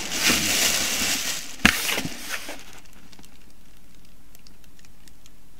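Packaging crinkling and rustling as it is handled, with one sharp knock partway through; it dies away after about two and a half seconds, leaving only faint light ticks.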